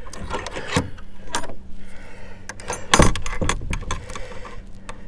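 Galvanized steel slide-bolt latch and snap hook on a wooden door, rattling and clicking as they are unclipped and worked by hand, with one sharp metal clack about three seconds in.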